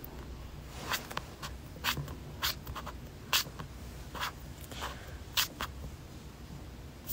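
A dozen or so short, sharp clicks and taps at irregular intervals close to the microphone, over a faint steady low hum.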